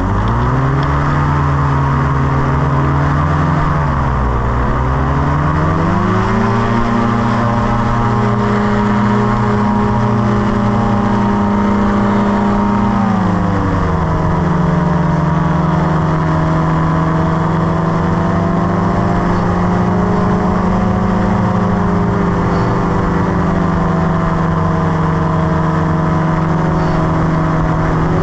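Tandem paramotor trike's engine and propeller running at takeoff and climb power. The pitch rises at the start, dips briefly about four seconds in, climbs again around six seconds, then steps down to a slightly lower steady note about thirteen seconds in and holds there.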